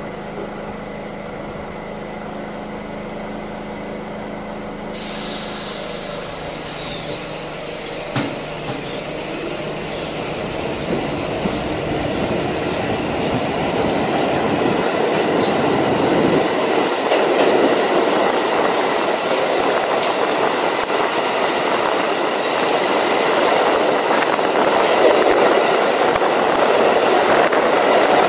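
New York City subway train standing at a station with a steady hum; a hiss comes in suddenly about five seconds in and a single knock follows a few seconds later. The train then pulls out, and the rumble of its wheels on the rails and its motors grows steadily louder as it picks up speed.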